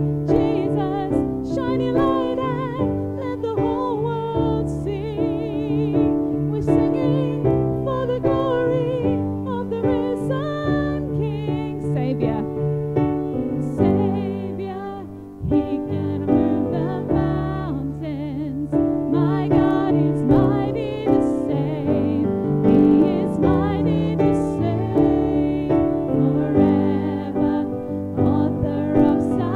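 A hymn sung with piano or keyboard accompaniment, the voices carrying a strong vibrato over held chords. The music breaks off briefly about halfway through, then carries on.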